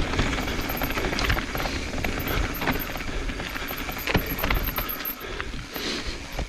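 Evil Wreckoning LB mountain bike rolling downhill over dirt, roots and rocks: a steady rush of tyre and wind noise with scattered rattling knocks from the chain and frame over bumps.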